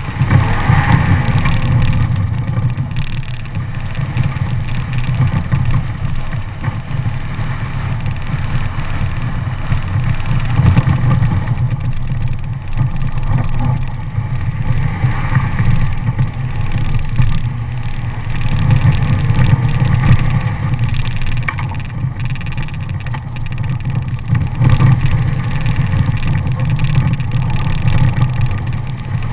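Toyota Tacoma pickup driving fast on a gravel dirt track: a steady, loud low rumble of engine, tyres on gravel and wind, heard from a camera mounted outside on the front fender.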